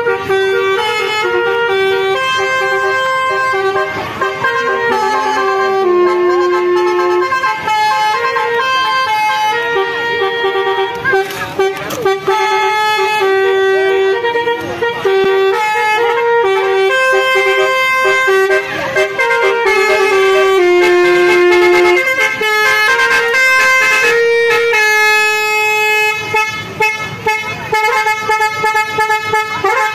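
Telolet basuri musical horn playing a tune: a steady run of held horn notes, one after another, stepping up and down in pitch like a melody.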